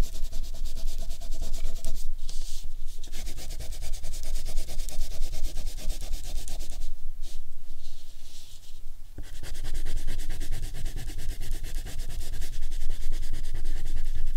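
Wax crayon scribbling on paper with quick back-and-forth strokes, pressed on firmly to lay down heavier colour: a continuous close scratchy rubbing.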